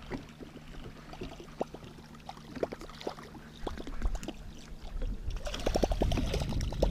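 Lake water lapping and splashing against the side of a fishing boat, with scattered light clicks. It grows louder from about five seconds in, with a quick run of splashy strokes.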